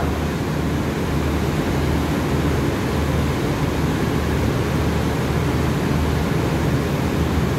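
Diesel-hauled express train standing at the platform, idling: a steady low rumble with a slight pulse under an even hiss.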